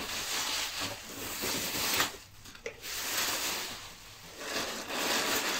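Bubble wrap crinkling and rustling as it is pulled out of a cardboard box, then hands rustling against the box's cardboard flaps. There is a sharp click about two seconds in, followed by a brief lull.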